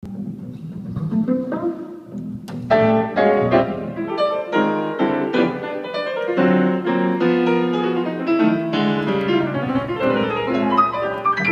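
Piano trio playing, with piano chords and runs over a double bass. It starts quietly and comes in fuller about three seconds in.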